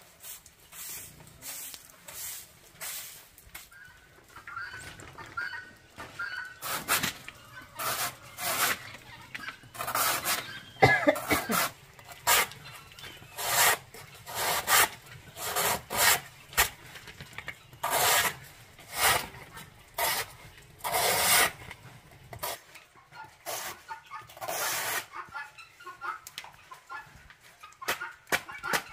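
A large knife shaving thin slices off a green banana stem: a run of quick, crisp strokes, about two a second, that starts a few seconds in and stops near the end.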